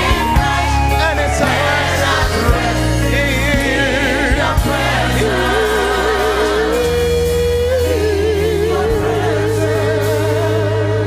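Live gospel worship music: voices singing long notes with a wide vibrato over held chords and bass notes that change every second or two.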